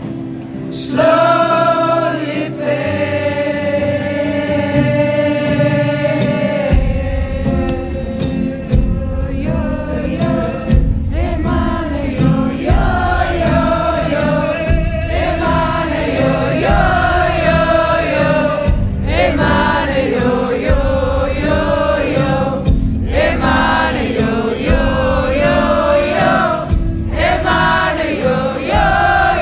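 Live music: long held, wordless singing, with a deep low beat coming in about seven seconds in and carrying on.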